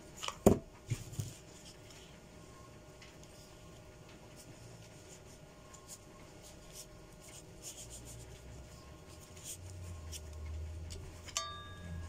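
A knock about half a second in and two lighter taps, then faint rubbing and light clicks of craft foam strips being handled and pressed together while hot-gluing.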